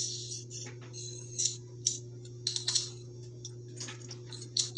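Light, irregular clicks and taps of a toddler handling a stiff picture board book, its pages and flaps knocking, over a steady low hum.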